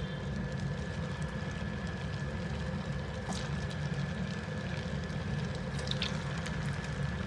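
Paneer-stuffed bread rolls deep-frying in hot oil: a steady sizzle and bubbling, with a few sharp crackles about three and six seconds in as more rolls go into the oil. A steady low hum runs underneath.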